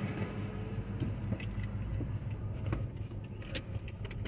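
A car's engine running with a steady low hum, with scattered light clicks and rattles.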